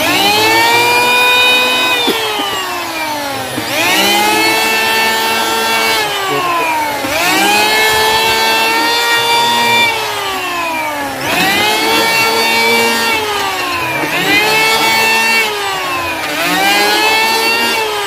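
HiKOKI P20SB electric hand planer running over hardwood in repeated passes. Its motor whine rises quickly, holds, then slides down in pitch, about six times over.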